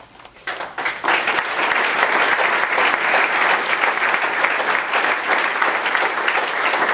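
Crowd applauding, with the choir on stage joining in: a few scattered claps about half a second in build within a second into steady, dense applause.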